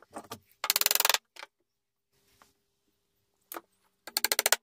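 Small hammer tapping wooden pegs into the joints of a pine box: two quick runs of sharp taps, about twenty a second, about a second in and again near the end, with a few single knocks between.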